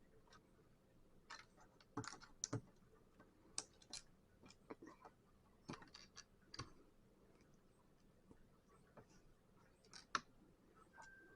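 Plastic Lego bricks clicking and tapping as they are handled and pressed together, in irregular sharp clicks, with a cluster about two seconds in and a sharp one near the end.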